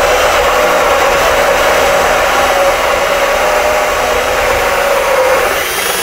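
Drill spinning a 2-1/8 in. bi-metal hole saw through a hollow-core wooden door: a steady motor whine over the rasp of the saw teeth cutting wood. The motor slows near the end.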